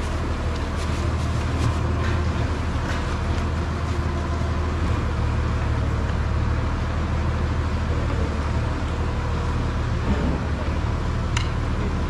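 Heavy machinery running steadily with a deep, even hum.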